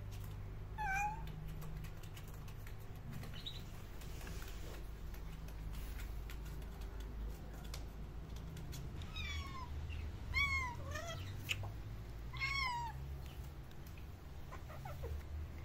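Domestic cat meowing: one meow about a second in, then four meows in quick succession about two-thirds of the way through.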